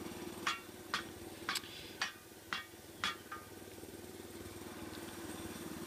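Hud-Son portable bandsaw mill's engine idling steadily, with about seven sharp knocks roughly every half second over the first three seconds as a hand tool strikes the log.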